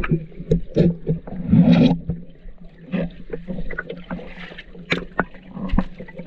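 Water sloshing and splashing around a waterproof camera held at the surface as it dips in and out of the water, with irregular clicks and drips and a louder splash about one and a half seconds in, over a steady low hum.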